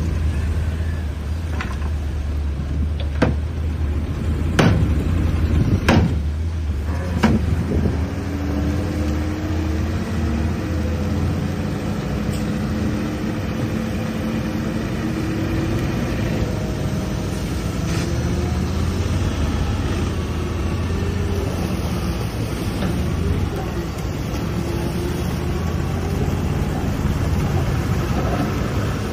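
Bulldozer's diesel engine running steadily, with several sharp metallic clanks in the first seven seconds or so and a wavering higher-pitched whine for a while after.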